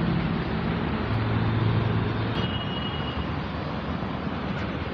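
Steady road traffic noise with a low engine hum that grows louder about a second in, then fades.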